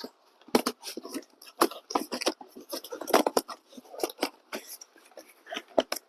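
Car parts and their packaging being handled: an irregular run of rustling, crinkling and light knocks.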